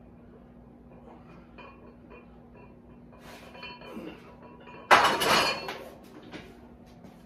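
A loaded Olympic barbell set down onto the steel J-hooks of a power rack about five seconds in: one loud metal clank, with the plates clinking and ringing for about a second after. Before it, only faint movement over a steady low hum.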